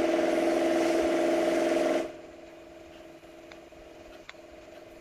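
A steady mechanical hum with hiss, coming through a participant's open microphone on a video call. It is loud for about two seconds, then drops suddenly to a faint hum that carries on.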